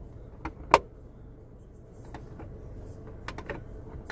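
Sharp plastic clicks and taps from handling a car's interior dome-light lens and housing, the loudest about three-quarters of a second in and a quick run of three or four near the end, over a low steady hum.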